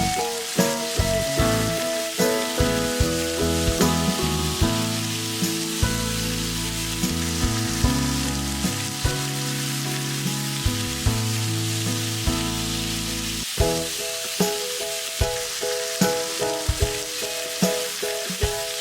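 Food sizzling as it fries in a pan, a steady hiss, with background music playing over it.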